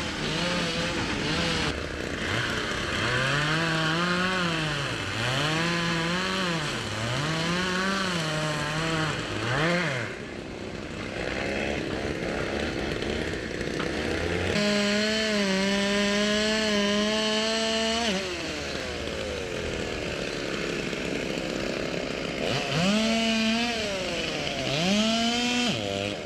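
A small motor whining, its pitch sweeping up and down over and over, with a stretch of steady pitch in the middle; the sound breaks off abruptly several times.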